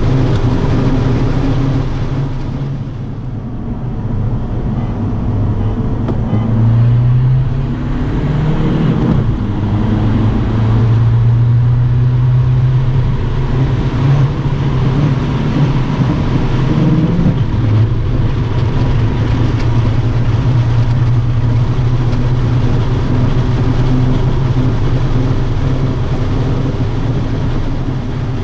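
Diesel car engine and road noise heard from inside the cabin while driving at speed. The engine note drops briefly about three seconds in, rises twice as the car accelerates, and then holds a steady drone.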